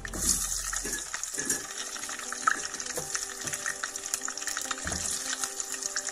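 Potato chunks frying in hot oil in a pan: a steady sizzle with scattered crackling pops. It jumps up suddenly as the pieces are dropped into the oil at the start, with a few soft plops of potatoes going in.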